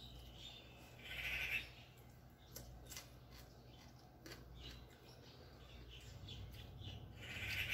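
Mouth sounds of eating by hand: chewing and lip smacks with a few sharp clicks. Two short, louder hissy bursts come about a second in and again near the end.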